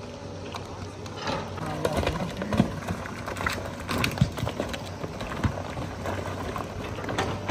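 Footsteps crunching and clattering over loose landslide rock and gravel, in irregular knocks and clicks, over a steady low hum.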